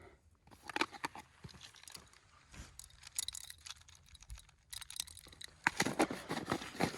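Scattered clicks, crunches and rustles of hands working a dog-proof raccoon trap and its bait, busier and louder near the end.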